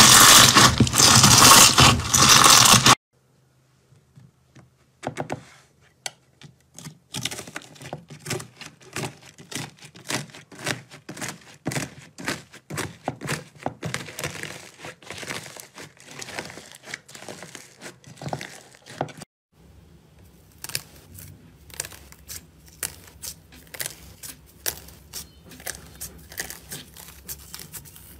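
Slime being worked by hand, a run of dense little pops and crackles. For the first three seconds bubble-filled green slime is scraped in its tub and crackles loudly. After a short gap, blue cloud slime is pressed and torn with quieter crackling, and near the end gold-leaf-covered slime gives off fainter crinkling clicks.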